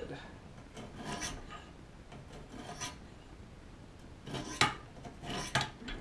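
Sharpening stones rasping in short strokes along the edge of a Gerber multi-tool knife blade in a guided rod sharpening rig, polishing the edge. Near the end, two louder strokes each end in a sharp knock.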